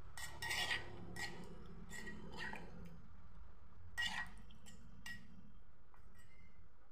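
A spoon stirring wet frog chili paste in a mortar, clinking and scraping against the bowl at irregular intervals. The clinks thin out after about five seconds.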